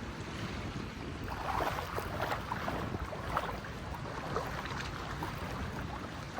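Seawater sloshing and splashing irregularly, with wind rumbling on the microphone.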